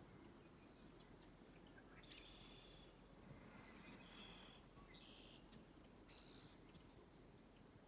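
Faint bird chirps and short trills, several of them at irregular intervals, over a quiet steady background hiss.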